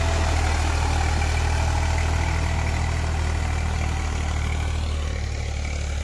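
Eicher 380 tractor's diesel engine running steadily under the load of a rotavator tilling deep mud. The sound eases a little near the end.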